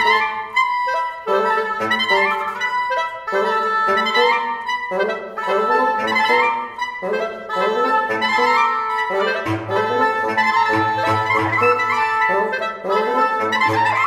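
Reed quintet of oboe, clarinet, soprano saxophone, bass clarinet and bassoon playing contemporary chamber music: short, detached figures with grace notes and quick triplets tossed between the parts. A low line from the bass instruments comes in about two-thirds of the way through.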